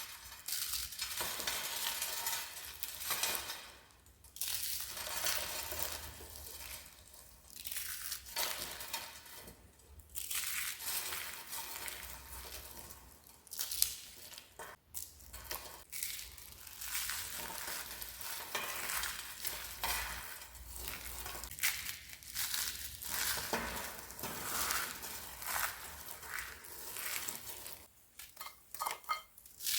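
Crispy, dried-out soap being crushed, crackling and crunching in irregular bursts with short pauses between them.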